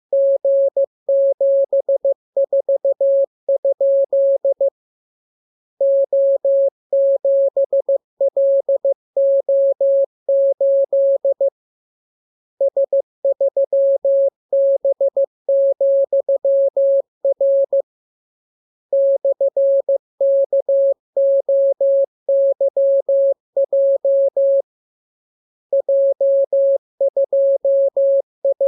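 Morse code (CW) practice tone, a single steady beep pitch keyed in dots and dashes, sending a practice radiogram of letters, numbers and signs. The code comes in runs of about five to six seconds separated by pauses of about a second.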